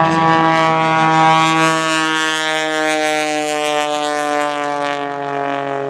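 Aerobatic biplane's 400-horsepower piston engine and propeller droning loudly overhead, the pitch falling slowly and steadily.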